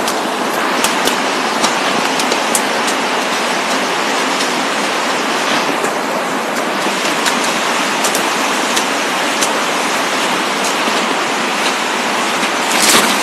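Steady rushing hiss, even and unbroken, with a scatter of faint ticks and knocks.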